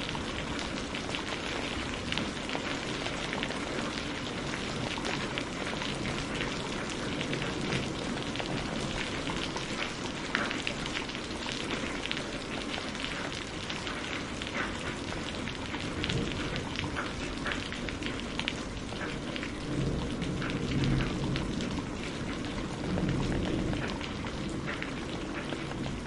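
Steady heavy rain with many separate drops striking close by. Low rumbles of thunder swell twice near the end.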